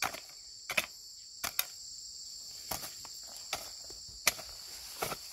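Hoe striking soil and grass roots in irregular strokes, a sharp knock roughly once a second, over a steady high chirring of insects.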